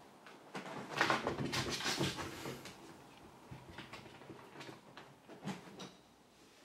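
Cat jumping onto and moving about a wooden tabletop: a flurry of thumps and scratchy scrabbling about a second in, then scattered lighter taps and clicks.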